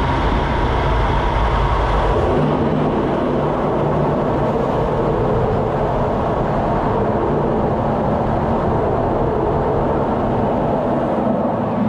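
Fighter jet's engine and airflow heard inside the cockpit: a loud, steady rushing noise over a constant low drone.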